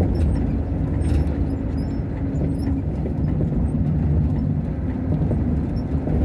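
Semi-trailer truck's diesel engine running under way with road noise, heard from inside the cab as a steady low hum whose note shifts a little under halfway through.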